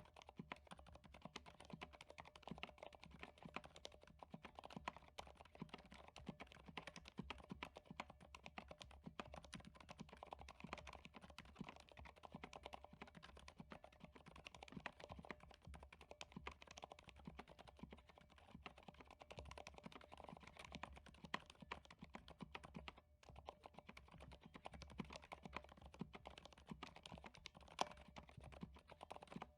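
Continuous fast typing on a MONOKEI Standard mechanical keyboard fitted with stock, unmodded MX Silent Red linear switches: a dense, quiet stream of keystrokes, with a brief pause about 23 seconds in.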